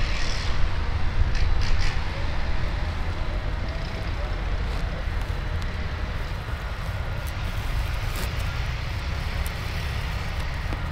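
Steady low rumbling outdoor noise, with a few light clicks and rustles as a tarpaulin and its tie-down ropes are handled on a truck.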